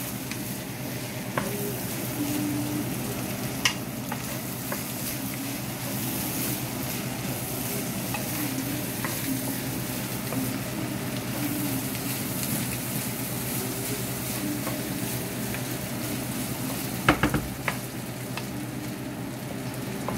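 Chopped pork for sisig sizzling in a nonstick frying pan while being stirred with a wooden spatula: a steady frying hiss with the spatula scraping through the meat. A couple of sharper knocks of the spatula on the pan stand out, the loudest late on.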